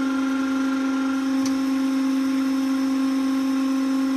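Elliot 8-20 surface grinder running with its hydraulic table feed switched on: a steady, even hum with a few fainter overtones above it.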